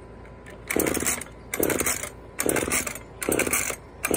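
Gas chainsaw being pull-started, the recoil starter yanked four times at about one pull a second, with a fifth beginning near the end. Each pull gives a short rasp of the cord and the engine turning over, then stops: the engine does not catch.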